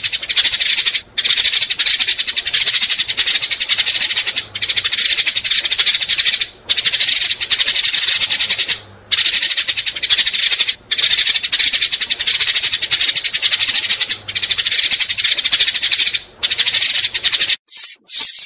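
House sparrows chirping: fast, dense chirps in runs of about two seconds, broken by short pauses. Near the end the chirps thin out into fewer, more separate calls.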